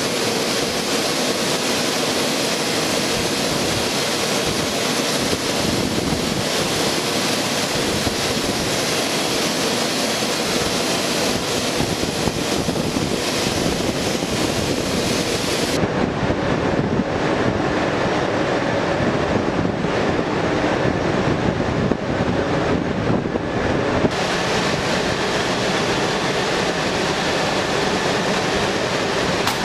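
A-10 Thunderbolt II jets taxiing, their twin General Electric TF34 turbofan engines running with a steady rush and a thin high whine. The whine drops out for several seconds in the middle.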